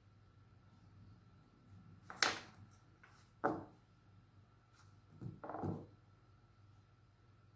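Four short knocks or clunks of objects being handled, the first two sharper than the last pair, over a low steady hum.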